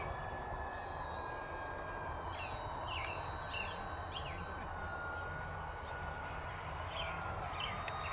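Electric motor and propeller of an FMS 1500mm Cessna 182 RC plane whining steadily in flight, the pitch sliding slowly lower as it comes in on its landing approach. A few short high chirps, like birds, sound over it.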